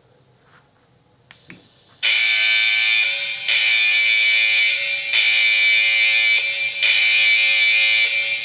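Two quick switch clicks, then a Krick 'Alarme' RC-boat sound module starts its electronic alarm through a small loudspeaker: a loud, steady multi-tone signal that repeats in cycles of about one and a half seconds.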